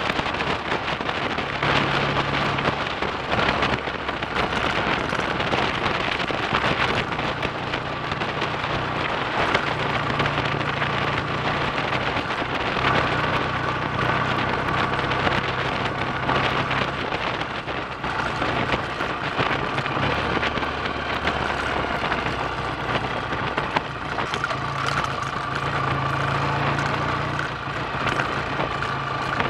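Freshly rebuilt BSA A65 Thunderbolt's 650 cc parallel-twin engine running on the road, its note stepping up and down several times as the speed changes. A steady rushing hiss of wind on the microphone runs under it.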